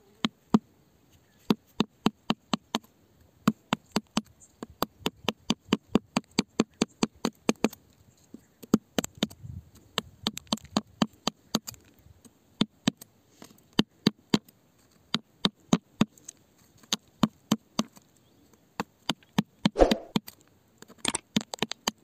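A hand tool tapping and chipping at rock and packed dirt: a run of sharp clicks, at times about four a second, with a longer scrape near the end.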